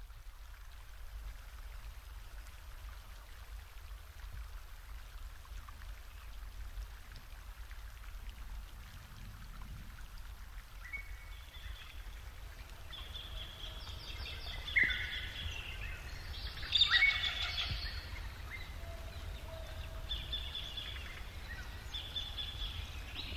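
Outdoor ambience with a steady low rumble. Birds begin calling about halfway through, short high chirps and call notes, with a few louder calls about two-thirds of the way in.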